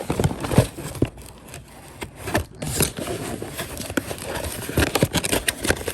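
Cardboard box packaging handled and rummaged through by hand: an irregular run of scrapes, rustles and light knocks.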